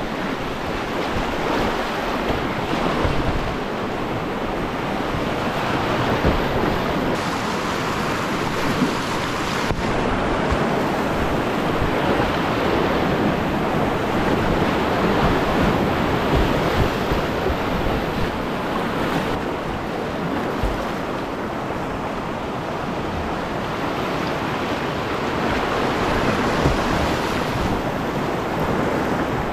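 Whitewater rapids rushing steadily around a kayak, heard close up from the boat.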